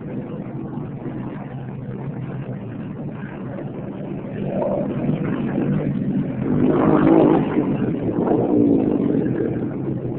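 Four-stroke single-cylinder dirt bike engine running. It grows louder about four and a half seconds in, is loudest a little past the middle, then fades near the end as the bike revs up for the jump and goes by close to the microphone.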